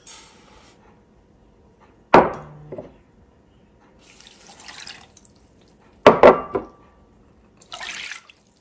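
Coconut sugar poured into an empty stainless steel saucepan with a brief hiss, then water poured from a small bowl onto the sugar in the pan, twice. Two sharp clinks with a short ring come about two seconds in and again about six seconds in.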